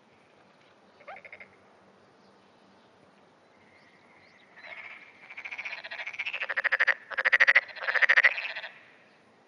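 Black-spotted pond frog calling. A short pulsed croak comes about a second in. From about halfway, a run of rapid pulsed trills grows louder, the last three loudest, and stops near the end.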